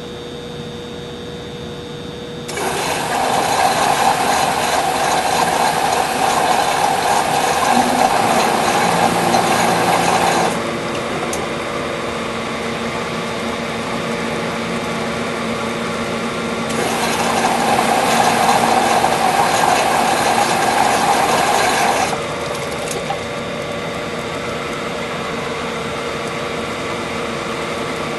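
Humidifier running with a steady hum. Twice a louder mechanical whirring starts suddenly, runs for several seconds and stops, the first time for about eight seconds and the second for about five.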